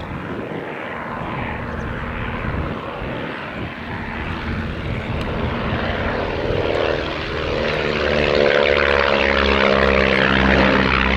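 Propeller biplanes flying a display pass, their piston engines and propellers droning and growing louder. The sound is loudest from about eight seconds in, with the engine pitch sliding as they pass.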